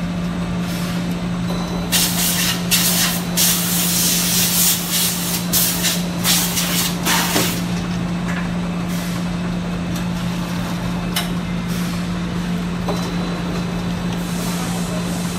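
Automatic jigger bowl-forming machine running with a steady low hum. About two seconds in, it gives a run of hissing bursts lasting some five seconds, then a few single short hisses.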